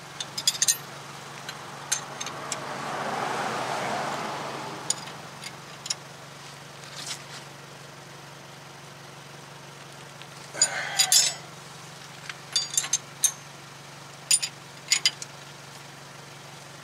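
Steel combination wrench clinking and clicking against the hub-bearing and steering-knuckle bolts of a Toyota Tacoma front hub as they are snugged down, in several short clusters of sharp metallic clinks. A broad noise swells and fades about two to five seconds in, over a steady low hum.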